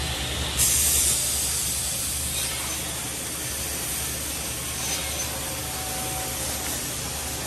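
Woodmaster square corner-block cutting and drilling machine running with a steady low hum. About half a second in a sudden loud hiss sets in, strongest for about half a second, then settles into a steady hiss over the machine noise.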